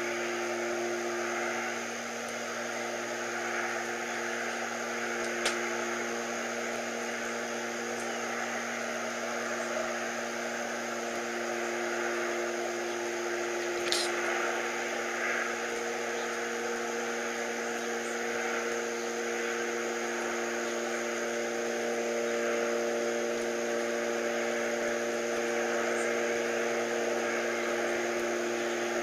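Unexplained steady humming with several held tones over a hiss. One tone fades out early on and comes back near the end, while higher tones come in around the middle, so the hum shifts in pitch. Two faint clicks are heard, the clearer one about halfway through.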